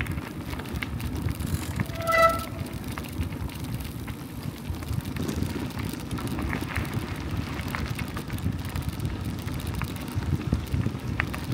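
Bicycles rolling along a gravel path: a steady low rumble of tyres on the loose surface. About two seconds in, a short clear tone lasting about half a second is the loudest sound, with a few faint clicks later.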